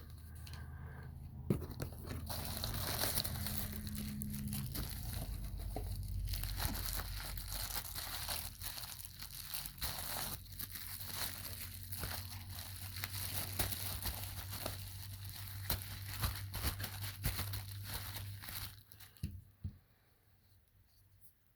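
Packaging being torn open and crinkled to unbox a new baitcasting reel: a long stretch of tearing and rustling dotted with small clicks, stopping about nineteen seconds in.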